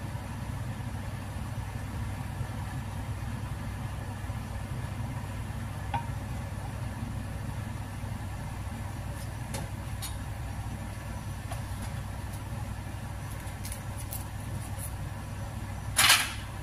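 Gas stove burner burning under a nonstick pan with a steady low rumble, while a thin crepe batter cooks. A few faint ticks come in the second half, and a short, louder hiss comes near the end.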